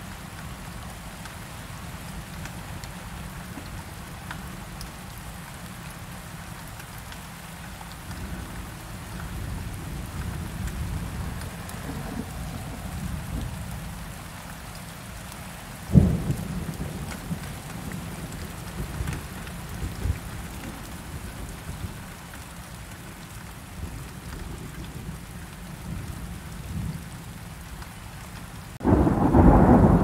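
Thunderstorm: steady rain with low rumbling thunder. One sharp thunderclap comes about halfway through, and a loud burst of thunder starts shortly before the end.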